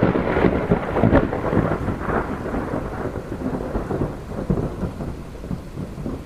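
Thunder sound effect over the logo intro: a rumble with a few sharp cracks in the first couple of seconds, slowly dying away.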